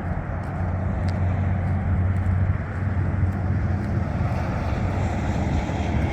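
Steady rumble of road traffic, a continuous low drone with a hiss of tyre noise over it.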